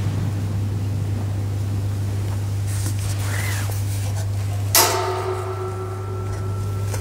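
A single sharp metallic knock near the end that rings on with several clear tones dying away over about two seconds, over a steady low hum.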